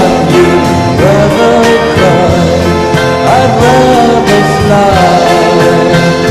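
A song with band backing, with a long held melody line that slides between notes.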